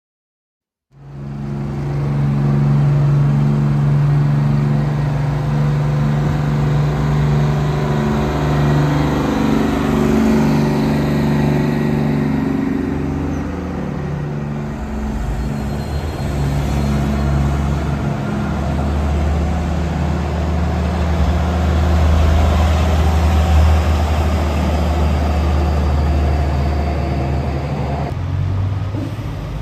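Heavy diesel truck engines running and moving past, starting about a second in: a steady low engine drone whose pitch shifts every so often.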